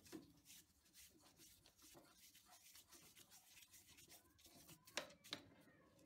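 Faint scraping and light ticking of metal on metal as a threading tool is worked by hand on a brass part held in a lathe chuck, with two sharper clicks about five seconds in.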